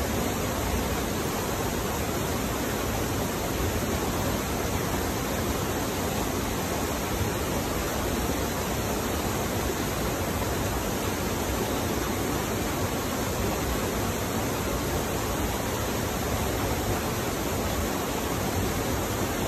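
Steady, unbroken rushing of fast-flowing stream water.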